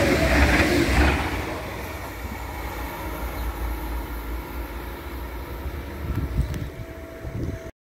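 A train passing at a level crossing, a loud rhythmic rumble of wheels on rail that fades away after about a second into a low, quieter running noise. The sound cuts out abruptly just before the end.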